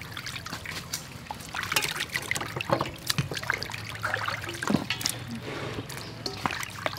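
Water splashing and trickling in a stainless-steel bowl as hands wash raw chicken breast pieces, with irregular small splashes and drips throughout.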